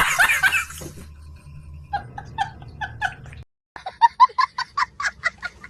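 Rapid, high-pitched giggling in short repeated bursts, several a second: loudest in the first half second, then fainter, with a brief cut-out about three and a half seconds in.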